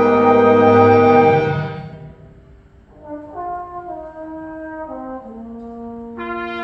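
School concert band playing live: a loud, brass-heavy chord is held and released about a second and a half in. After a brief hush, a few soft held notes move step by step, and a fuller chord from more of the band comes in near the end.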